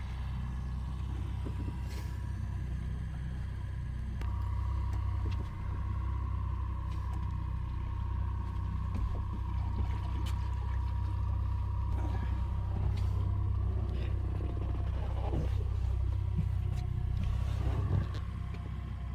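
Boat motor running steadily at trolling speed, a low rumble with a thin whine, a little louder for most of the stretch before easing back near the end.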